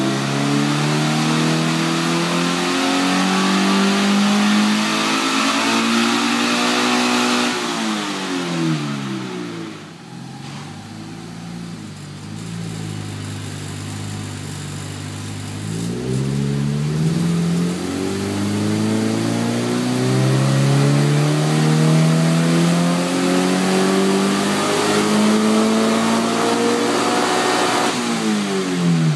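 Subaru BRZ's 2.0-litre flat-four running through a PERRIN cat-back exhaust during dyno pulls. The engine climbs steadily in revs, lifts off and falls back to a low idle about eight seconds in, then makes a second long climb from about sixteen seconds that ends in another lift-off near the end.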